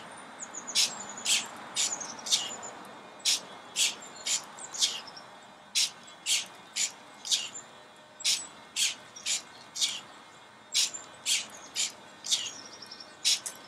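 Quarter-scale hobby servo motors in a robot dog's legs whirring in short, high-pitched bursts, about two a second, as the legs step; birds chirp faintly now and then.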